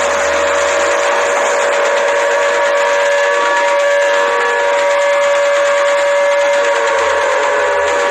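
Emergency alarm signal sounding: a loud, steady chord of several tones over heavy hiss, like a siren or whistle held on one pitch, with one tone beginning to slide down near the end.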